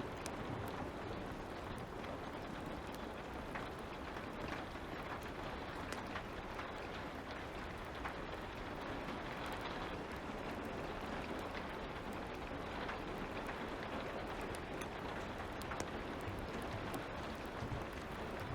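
Steady light rain falling, with scattered small pops and crackles of a wood fire.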